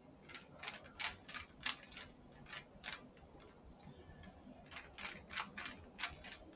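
Plastic Rubik's Cube layers being twisted by hand: a faint run of quick irregular clicks and snaps, pausing briefly around the middle before picking up again.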